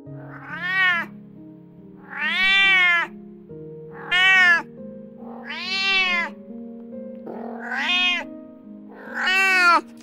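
Domestic cat meowing six times in a row, each meow rising and then falling in pitch.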